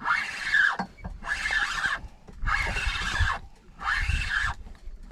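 Penn 4000 spinning reel whirring under load as line is wound in against a fish, in repeated bursts of a little under a second, about one every second and a bit.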